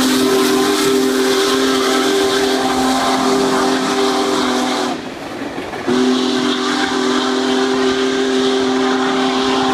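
Union Pacific 4014 Big Boy steam locomotive's whistle blowing a steady multi-note chord in two long blasts, the first ending about five seconds in and the second starting about a second later, over the rolling noise of the passing train.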